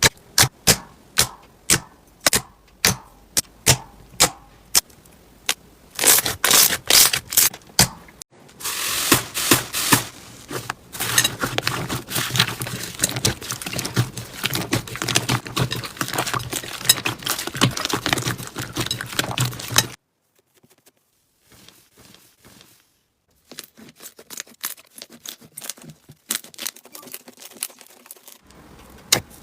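Slime being pressed and squeezed by hand, giving sharp separate clicks and pops at first, then a long stretch of dense crackling typical of crunchy slime, a brief near-silent break, and fainter scattered clicks near the end.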